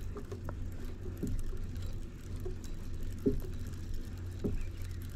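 Three soft, spread-out knocks against a kayak during fishing, over a steady low rumble.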